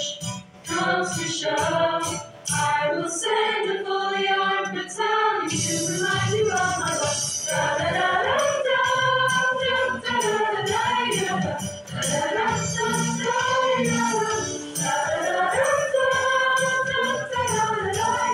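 Mixed choir singing over an accompaniment with a steady ticking beat. The low part of the accompaniment comes in about five and a half seconds in.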